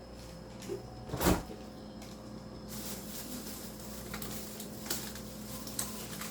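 A door thumps shut once, loudly, about a second in, followed by a few light clicks and knocks of things being handled over a steady low hum.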